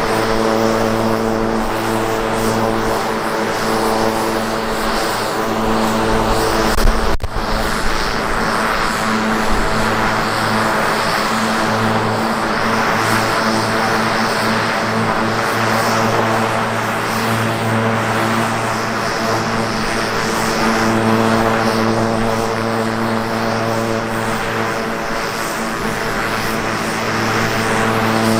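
Grob G120TP's Rolls-Royce 250 turboprop engine and propeller running steadily at low power while the aeroplane taxis: an even propeller drone with turbine hiss. There is a brief break about a quarter of the way through.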